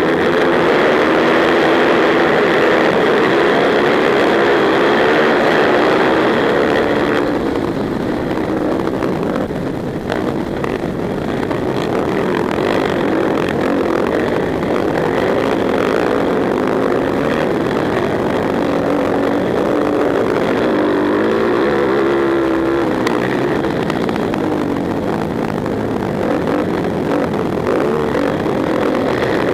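Several racing quads (sport ATVs) running under hard throttle, their engines loud and continuous, the pitch rising and falling over and over as they accelerate and ease off.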